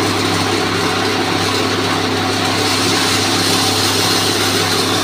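Electric-motor-driven grain milling machines, a maize dehuller and a hammer-type posho mill, running steadily and loudly, with a constant motor hum under an even rushing noise.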